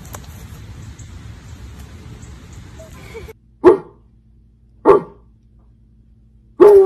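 A dog barks three times, about a second apart, with the third bark longer and falling in pitch.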